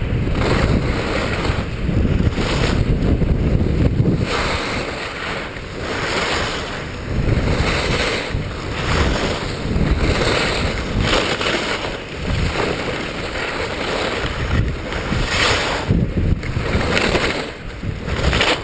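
Skis scraping and hissing on snow in rhythmic turns through moguls, swelling about every second and a half, over wind rumbling on the camera microphone.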